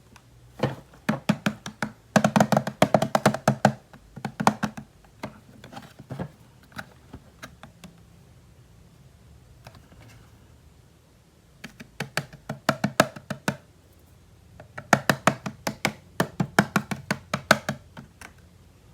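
Quick runs of hard clicks and taps on plastic toy pieces, about ten a second, in two spells with a quieter gap between them.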